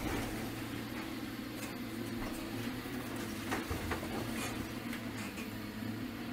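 Caterpillar excavator's diesel engine running steadily as its demolition grapple tears at a masonry wall, with scattered sharp knocks and cracks of breaking and falling debris.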